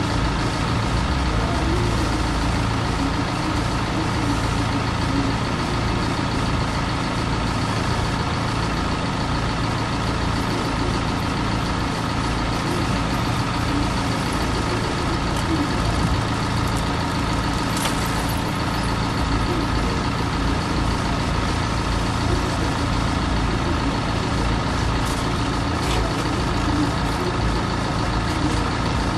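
Steady rumble of vehicle engines idling, with no clear change.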